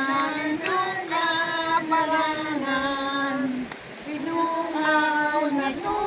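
A group of older women singing a song together without accompaniment, holding long notes that step up and down in pitch.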